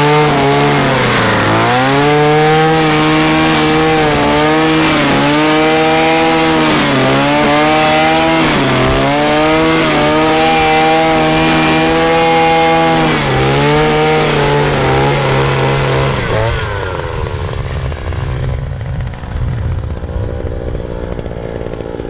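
BCH 400T petrol brush cutter running at high revs while its line head trims grass. The engine note dips and recovers several times. About three-quarters of the way through it drops back to a low, rough idle.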